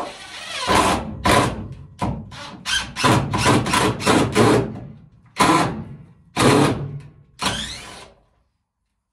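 Cordless drill driver driving a screw into a timber batten, its motor whirring in repeated runs: a long first run, then a quick series of short pulses, then three longer runs about a second apart.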